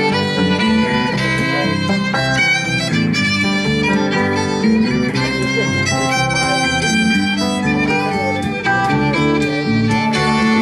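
Live country-style band playing an instrumental break between verses: a fiddle carries the melody over guitar and bass accompaniment.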